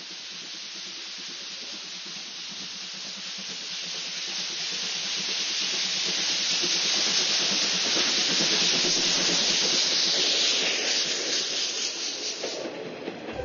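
Japanese tank steam locomotive approaching and passing close by, a loud steam hiss from steam venting at the front, low down, that grows louder as it nears, followed by the coaches rolling past; the sound drops away abruptly near the end.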